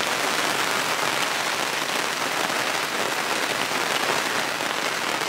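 Heavy rain falling steadily on the camp awning and the bush around it, an even hiss with no breaks.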